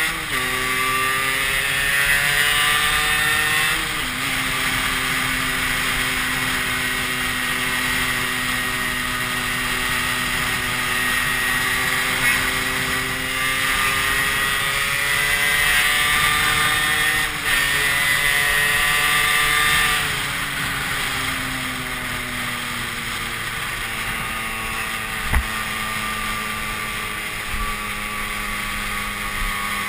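Small trail motorcycle's engine running under way, with wind and road noise. Its pitch steps down at gear changes just after the start and about four seconds in, holds, climbs, dips briefly about seventeen seconds in and climbs again, then falls off about twenty seconds in and stays lower. A single sharp thump comes about twenty-five seconds in.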